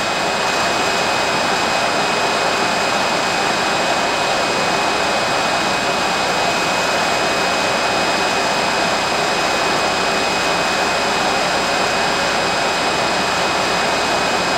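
Steady machine noise from the test laboratory: an even rushing sound with a few thin, steady high-pitched whining tones. There are no pops or cracks.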